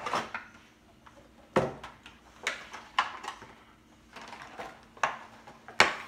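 Clear plastic packaging crinkling and crackling in the hands as it is pulled out of a cardboard box, in a string of separate short bursts with a dull knock about one and a half seconds in and the sharpest crackle near the end.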